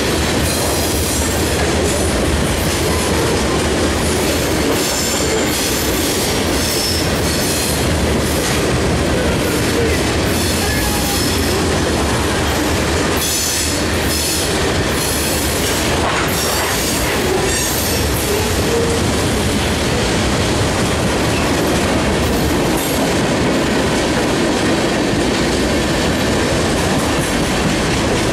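Freight train rolling past at close range, covered hopper cars and then tank cars, steel wheels clacking over the rail joints. Several times the wheels give a brief high squeal.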